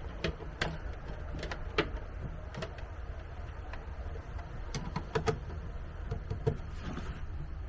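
Scattered small clicks, taps and knocks as wires and a screwdriver are handled at an RV's open power distribution panel, over a steady low hum.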